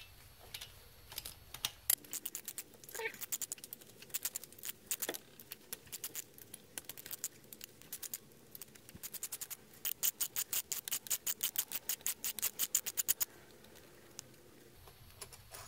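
Hand ratchet with a 13 mm socket clicking as the fuel-rail bolts are backed out: scattered clicks at first, then a fast even run of about six clicks a second in the later part.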